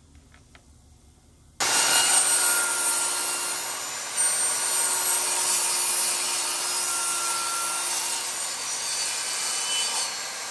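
Table saw ripping a thin wood panel along the fence. The saw noise starts abruptly about a second and a half in, stays loud and steady while the panel is fed through, and eases slightly near the end.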